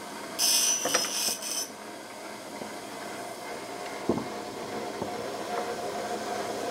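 Bench grinder wheel grinding steel bar stock in a short burst of about a second, taking metal out of a go-kart steering arm so it fits its spindle. The grinder's motor then runs on with a steady hum, and a sharp knock near the four-second mark as a steel part is set on the wooden bench.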